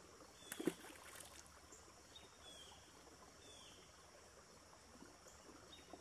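A small bass dropped back into the pond, making one short splash about half a second in, then faint outdoor ambience with a few short high chirps.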